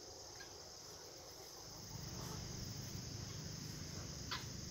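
Faint, steady high-pitched insect chorus from the overgrown field, with a low rumble coming in about two seconds in and a single short tick near the end.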